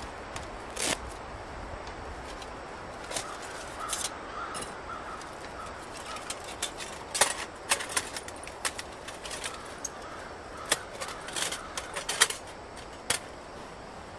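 Sharp metallic clicks and clinks of a folding flat-pack metal twig stove as its hinged panels are unfolded and slotted together, an irregular scatter of ticks that gets busiest about halfway through.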